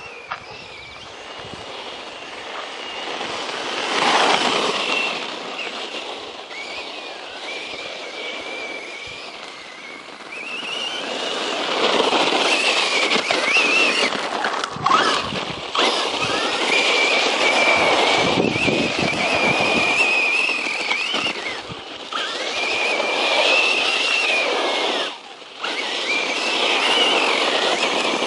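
The brushless electric motor of a 1/10-scale RC monster truck is whining high as it drives, its pitch rising and falling with the throttle. Under it is a rushing noise from the truck running over the ground, which swells and fades as it makes its passes and drops out briefly near the end.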